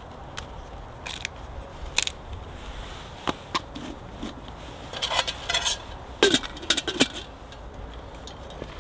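Small metal camp cookware clinking and scraping as pots and their parts are handled and fitted together, a series of short irregular clatters that come thickest in the second half.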